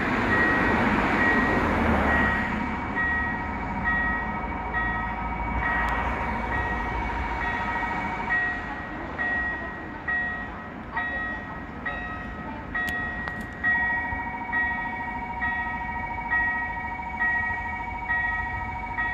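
Level-crossing warning bell ringing, an electronic chime of several pitches struck a little more than once a second, signalling an approaching train. A steady tone sounds under it, dropping out for several seconds in the middle. There is a louder rush of noise in the first couple of seconds.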